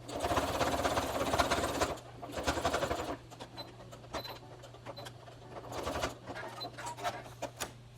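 Electric sewing machine stitching denim in bursts: a run of about two seconds, then several shorter runs, with small clicks between.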